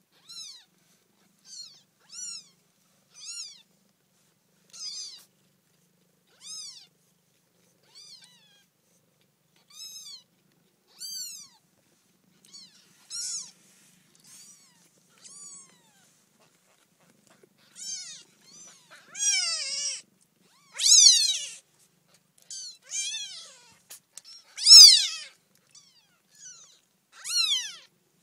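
Two-week-old F1 Savannah kittens mewing in short, high-pitched cries, about one a second. The cries grow louder and come closer together in the second half, with the loudest about three-quarters of the way through.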